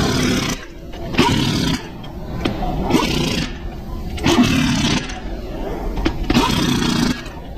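Pneumatic impact wrench hammering the lug nuts onto a car wheel in five short bursts with pauses between, one nut after another as the wheel is fastened back on.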